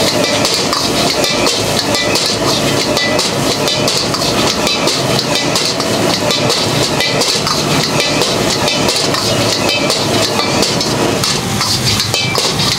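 Metal ladle clattering and scraping continuously against an iron wok as fried rice is stir-fried over a gas burner, with the burner's steady rush and the rice sizzling beneath.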